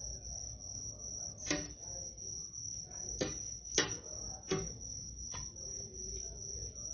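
A ladle knocking against the side of an aluminium cooking pot five or six times while stirring soup, over a steady high-pitched whine.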